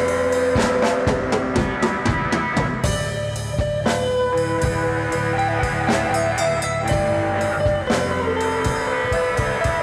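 Background music with a steady drum beat and guitar.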